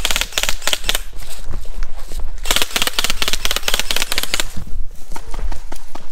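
Airsoft gun firing on full auto: a rapid run of clicks at the start lasting about a second, then a longer burst of about two seconds in the middle. Low thuds of running footsteps sound underneath.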